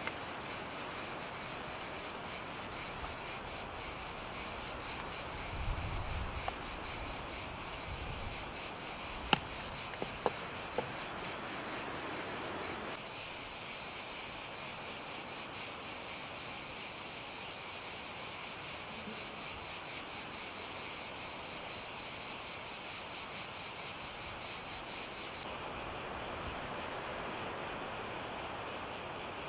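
A steady, high-pitched chorus of insects chirring in a pine forest, with a fast even pulse running through it. It gets louder about thirteen seconds in and drops back near the end, with a single sharp click about nine seconds in.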